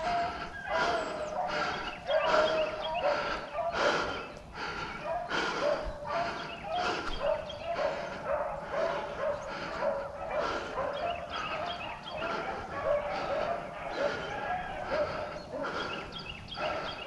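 Several rabbit hounds baying continuously, their voices overlapping in rapid repeated calls: hound music of a pack running a rabbit.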